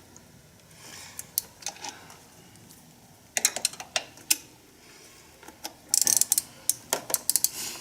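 Ratchet wrench clicking in two quick runs of rapid clicks while tightening the EGR valve's mounting bolts.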